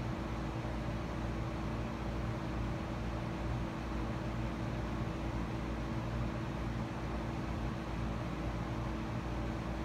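Steady electrical hum and hiss, with several low, even tones underneath.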